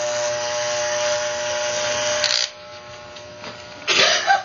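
Electric hair clippers with a guard comb buzzing steadily while cutting hair. The buzz is loud at first and drops away about two and a half seconds in, and a short loud burst comes near the end.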